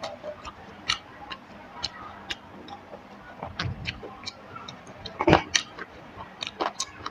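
Close-miked eating sounds: irregular wet chewing and lip-smacking clicks, with one louder smack about five seconds in.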